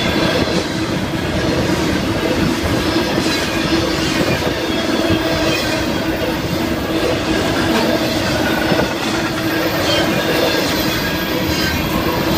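Florida East Coast Railway intermodal freight cars rolling past: a steady loud rumble of steel wheels on rail with irregular clanks and a faint wheel squeal.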